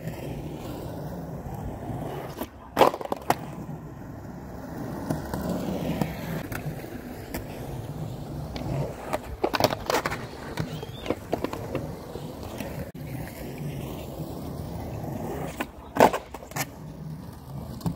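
Skateboard wheels rolling on a concrete ramp, with a few sharp clacks of the board and trucks striking the concrete, the loudest about three seconds in and near the end.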